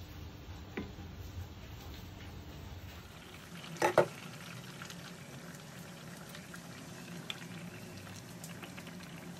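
Mustard hilsa curry simmering in a pan, the thin sauce bubbling with small pops and ticks while a spatula stirs it. A sharp double knock, the loudest sound, about four seconds in.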